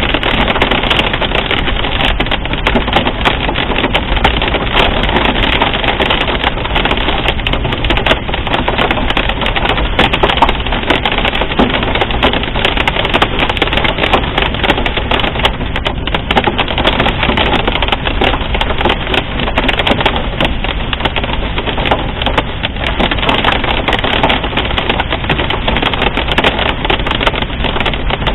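Pea- to marble-size hail and heavy rain pelting a car, heard from inside as a dense, unbroken clatter of sharp hits over a steady rush of rain and road noise.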